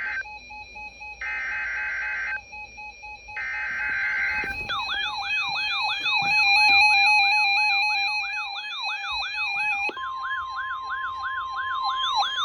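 NOAA Weather Radio emergency alert for a severe thunderstorm warning. First come three short bursts of the screechy digital EAS/SAME header tone. Then, about five seconds in, a weather-radio receiver's siren alarm starts wailing rapidly, about two sweeps a second, and near the middle the steady 1050 Hz warning alarm tone joins it.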